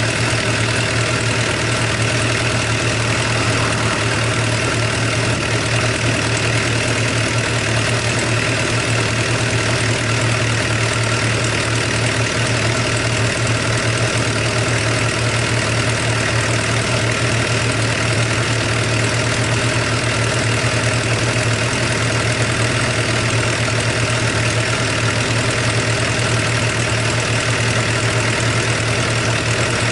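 Suzuki GSX-R750 L2 inline-four engine idling steadily with an abnormal tapping from the valve train. The owner takes it for tappet noise that grows louder until the engine is fully warm, and suspects wear after 53,000 km including circuit riding.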